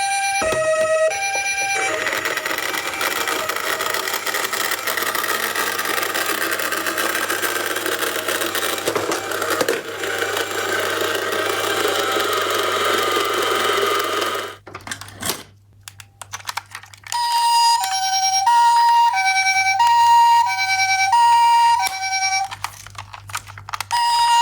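Toy ambulance minicars' electronic sirens: a two-tone hi-lo siren at the start, then a harsh, noisy siren sound lasting about twelve seconds, a brief pause with a few clicks, and the two-tone hi-lo siren again near the end.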